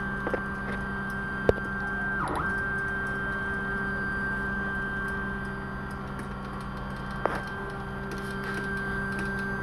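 CoreXY CNC stepper motors driving the carriage diagonally back and forth: a steady whine, with a brief pitch sweep twice, about five seconds apart, as the carriage reverses. With the pulley set screws now tightened, the motors run without skipping steps.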